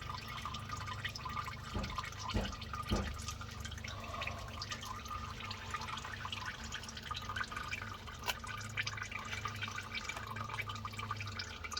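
Engine oil draining from the oil pan of a 2006 Ford Explorer 4.0 into a drain pan, a steady trickle, with a few short knocks about two to three seconds in.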